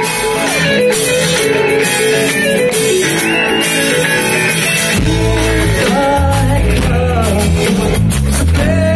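Live rock band playing, with a guitar prominent and pitched lines gliding over the band. The bass drops out for the first half and comes back in strongly about five seconds in.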